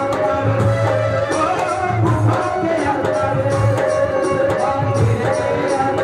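Live Haryanvi ragni music: a hand drum keeps a steady beat of deep strokes under held, sliding melody notes.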